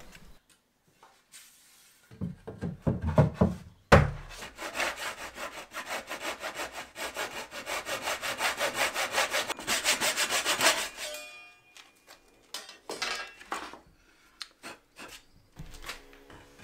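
A handsaw cuts across a pine wall board in steady strokes, about three to four a second, for roughly seven seconds. Before and after the cutting, the boards knock as they are handled, with one sharp knock just before the sawing starts.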